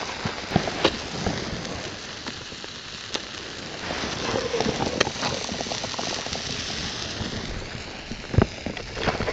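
Food frying in hot butter in a pan over a campfire: a steady sizzling hiss full of small pops, with a sharper knock near the end.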